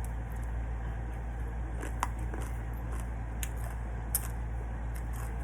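Eating at a meal: a few faint, sharp clicks and taps over a steady low hum.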